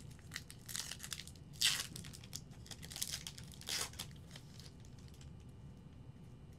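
Trading card pack wrapper being torn open and crinkled by hand: a few short rips and rustles over about four seconds, the loudest a little under two seconds in.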